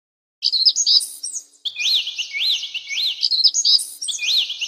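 Looped bird-chirp sound effect: bright rising-and-falling tweets, about two a second, with the same short phrase repeating.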